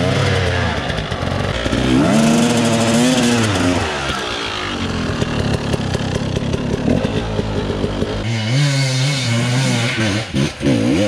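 Enduro motorcycle engine revving, its pitch rising and falling several times, holding a steadier note for a couple of seconds near the end before another quick rev.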